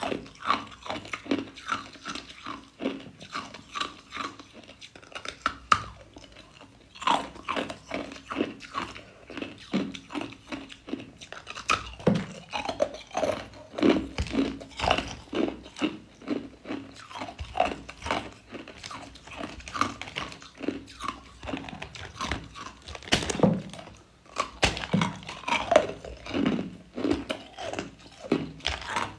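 Clear ice cubes being bitten and chewed: rapid, sharp crunching and cracking, with a short lull about six seconds in.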